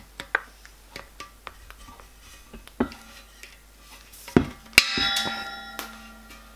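Side cutters working at a threaded stud on a copper boiler: light metal clicks, then about 4.8 seconds in the stud snips off with a sharp crack and the metal rings briefly.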